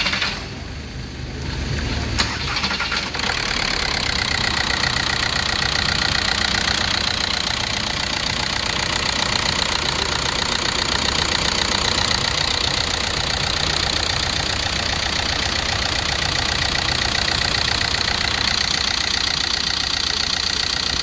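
SEAT Leon's 1.9 turbo-diesel four-cylinder engine idling steadily, with a steady high whine over the diesel running sound.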